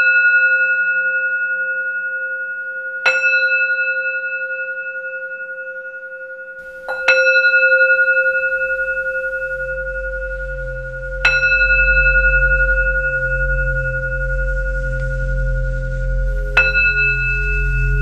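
Metal Tibetan singing bowl struck four times with a felt-covered mallet. Each strike rings out in a long, slowly fading tone with several overtones above it. A low hum fades in under the ringing about seven seconds in, and after the last strike the deepest tone is a little lower.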